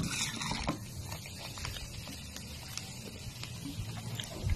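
Faint scattered clicks and crackles of a buttered shrimp's shell being peeled apart by hand.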